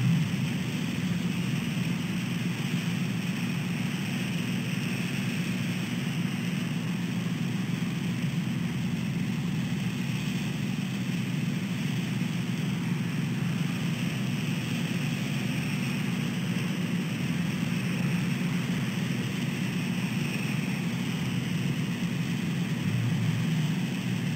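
Steady drone of road traffic, a low rumble with a hiss over it and no distinct events.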